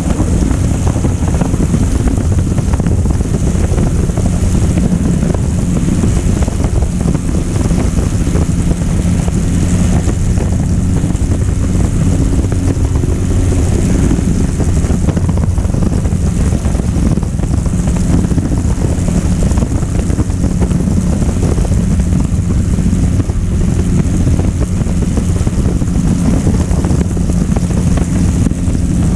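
Blériot XI-2 monoplane's engine and propeller running steadily through the lift-off and climb, a constant low drone with rushing wind noise over the microphone.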